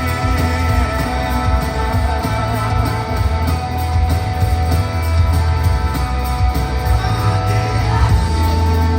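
Live rock band playing, heard through a phone-style audience recording in a large hall: electric guitars, heavy bass and drums, with a singer's voice.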